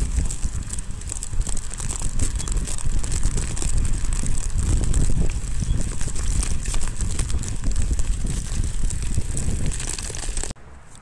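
Mountain bike riding over frozen snow, heard through a camera mounted on the bike: a continuous low rumble and rattle with dense crunching clicks. It drops off suddenly near the end.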